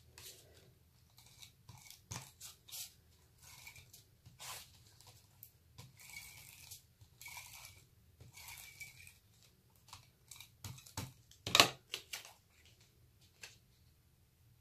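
A tape runner being drawn along strips of cardstock in several short rasping strokes, with paper rustling as the strips are laid down and pressed flat. A single sharp knock about two-thirds of the way through is the loudest sound.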